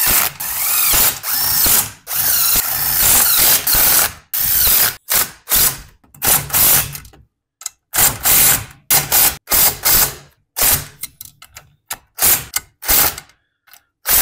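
Cordless drill driving in the oil pan bolts on an 8 hp Tecumseh engine, its motor whining up and down in repeated bursts: two longer runs in the first four seconds, then many short bursts.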